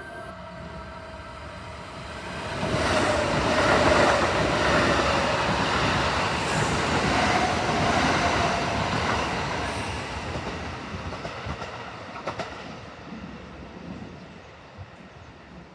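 Kintetsu electric train passing through the station at speed without stopping. It comes up loud about two and a half seconds in, stays loud for several seconds with a whine and wheel-on-rail clatter, then fades away with a few clacks from the wheels over rail joints.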